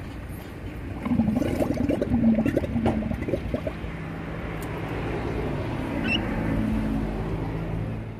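Male dromedary camel in rut rumbling with its dulla, the inflatable palate sac, pushed out of its mouth: a choppy run of rapid pulses from about a second in, then a steadier low rumble that swells and stops near the end.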